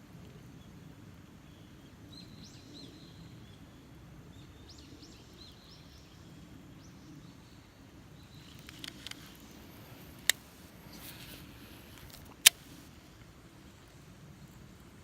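Small birds chirping faintly over steady outdoor background noise, then two sharp clicks a couple of seconds apart, the second one the loudest.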